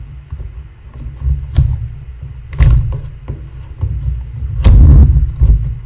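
Handling noise from fitting the fuel line onto a Stihl MS250 chainsaw's carburetor: scattered knocks and clicks of plastic parts, with low thumps through the workbench. The loudest knocks come near the end.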